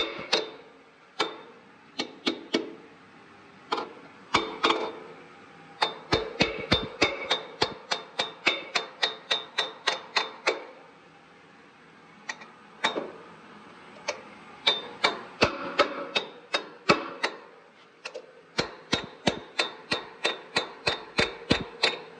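Hammer blows on a 3/8-inch by 3-inch steel bolt, driving it in until it reaches its stop. The metal strikes ring sharply and come in runs of about three a second, with short pauses between the runs.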